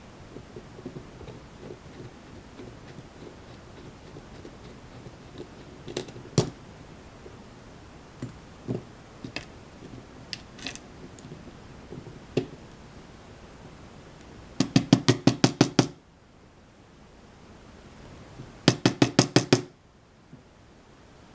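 Small metal clicks and knocks of a lock being handled and taken apart, then two quick runs of about eight sharp knocks each: the lock body being rapped against a surface to shake out a spring that is stuck inside.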